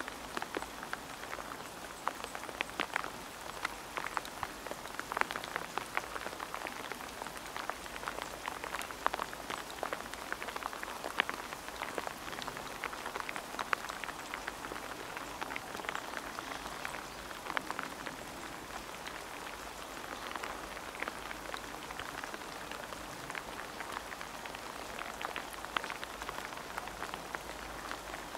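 Steady patter of rain, many small irregular drops falling on wet surfaces.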